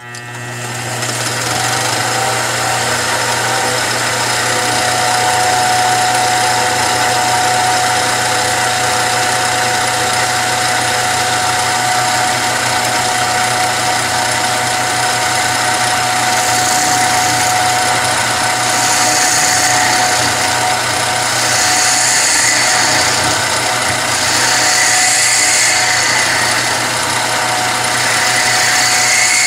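A Joe Porper cue lathe spins up at the start and then runs steadily, with a hum and a steady whine. From about halfway through, the cutting tool bites into the old leather cue tip in several hissing, scraping passes as the tip is turned off the shaft.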